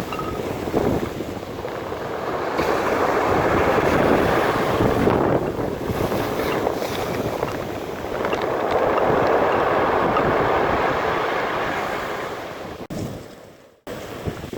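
Stormy sea surf: waves breaking and washing up the beach in two big swells, with wind buffeting the microphone. Near the end the sound fades and cuts out for about a second before the surf resumes.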